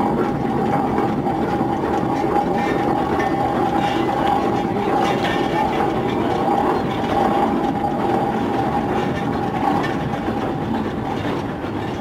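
1925 Breda steam road roller under way: its steam engine and gearing running with a steady mechanical clatter and a steady tone over it.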